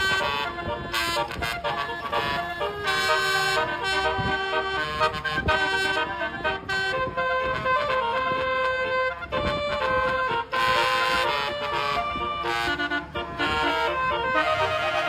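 Basuri telolet horn, the multi-tone musical air horn fitted to Indonesian buses, playing a melody in a quick run of steady, stacked horn notes.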